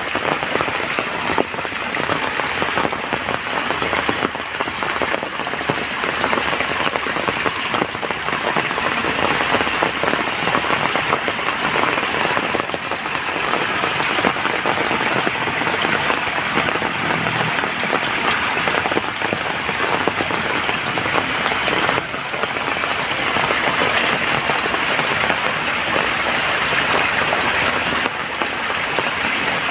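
Steady rainfall pattering on surfaces, with a dense, even hiss of many drops that holds its level.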